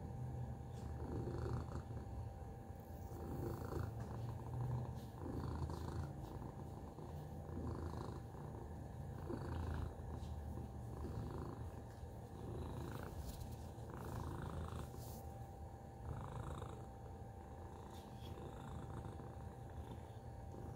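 Domestic tabby cat purring steadily close to the microphone, the low purr swelling and easing with each breath in and out.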